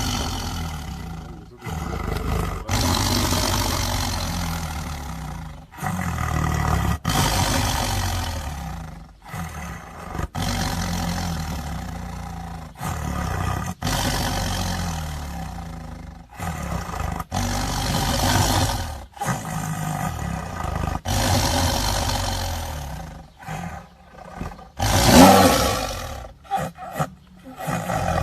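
Tiger roaring and growling over and over: a long string of deep, loud roars lasting one to four seconds each, most breaking off abruptly, with the loudest roar near the end.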